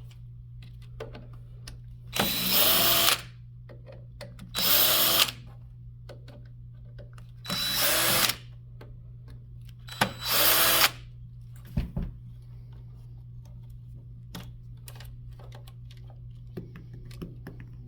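Power drill-driver backing out four screws from the caddy's plate, in four short runs of about a second each, with small handling clicks between them.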